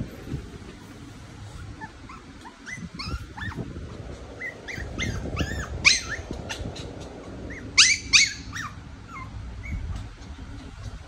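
Maltese puppy giving a string of short, high-pitched yips and whines, the loudest ones about six and eight seconds in.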